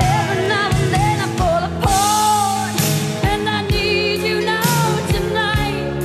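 A song with a singing voice over a band, with drums coming in right at the start and beating steadily.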